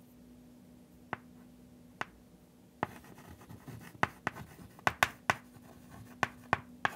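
Chalk writing on a blackboard: two lone taps in the first two seconds, then a quick run of chalk taps and short scrapes from about three seconds in as a word is written, over a faint steady hum.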